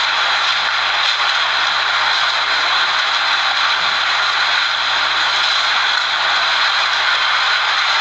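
Tornado winds making a loud, steady rushing noise, captured on a phone's microphone.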